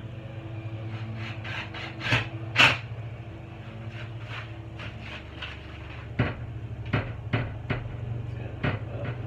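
A string of sharp knocks and clicks, like hard objects or wooden parts being handled, over a steady low hum.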